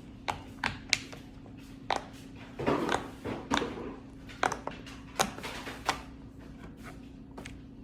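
Rainbow silicone pop-it fidget toy being pressed, its bubbles popping one at a time in sharp, irregular pops, with a brief rubbing of fingers on the silicone about three seconds in.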